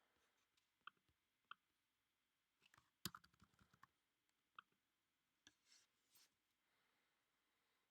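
Faint, scattered clicking of a computer keyboard and mouse, with a quick run of clicks about three seconds in and near silence between.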